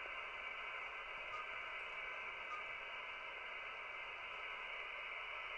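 Faint steady static hiss from a Racal 25 handheld VHF radio, with a few very faint short beeps as its keypad is pressed.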